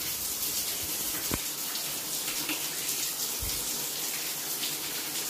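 Shower head running steadily, its spray splashing onto the Kerdi-membraned walls and plugged shower pan as the pan fills for a flood test.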